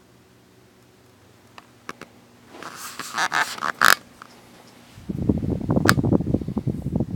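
Homestead Four Winds ceiling fan humming faintly, then clicks and rustling as its side speed switch is turned. About five seconds in, a louder, rough, fluttering low rumble sets in as the fan picks up to its next speed and its air buffets the microphone.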